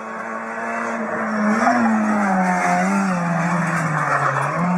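A 1996 Renault Mégane FN3 rally car's four-cylinder engine revving hard at stage speed. It grows louder from about a second in, and the engine note rises and dips several times as the driver lifts and changes gear.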